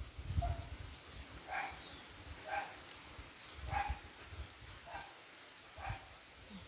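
A dog barking repeatedly, short barks about once a second. Low thumps in the first second or so.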